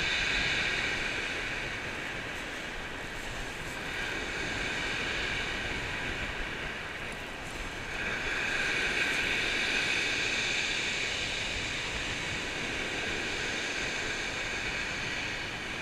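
Surf breaking on a steep shingle beach and washing back over the pebbles, with wind. The wash swells twice, near the start and again about halfway through.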